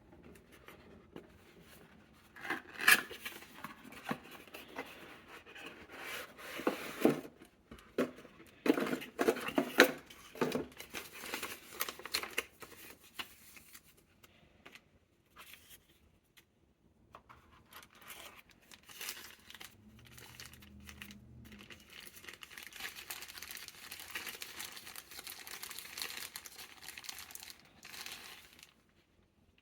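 Packaging being opened and handled: tearing and crinkling of wrapping, with irregular sharp clicks and knocks of the box and parts, then a longer stretch of steady rustling near the end.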